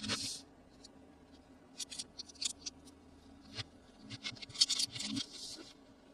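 Toy packaging being handled at close range: scattered plastic crinkles, clicks and taps, with a sharp click at the start and a denser burst of crinkling about four to five and a half seconds in.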